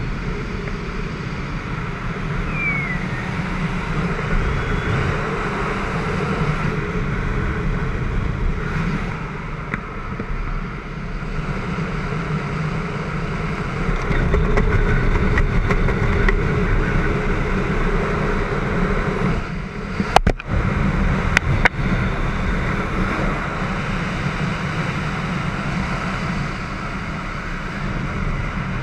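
Wind rushing over the camera's microphone while gliding under an open parachute canopy, a steady deep rush with no engine. A few sharp clicks come about two-thirds of the way through.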